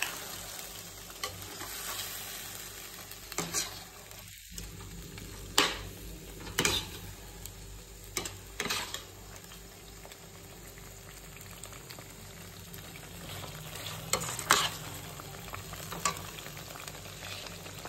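Chicken masala gravy sizzling in a stainless steel kadai while a steel ladle stirs it, with sharp clinks of the ladle against the pan every second or two.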